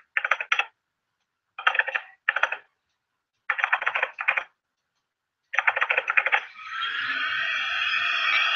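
Computer-keyboard typing sound effect, rapid clicking in five short bursts as on-screen text types itself out. Near the end a steady rushing drone comes in and builds.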